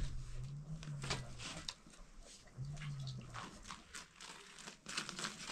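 Sheets of thin, dry homemade flatbread crackling and rustling as they are lifted and stacked. Two low, drawn-out hums come through as well, one early and a shorter one a little before the middle.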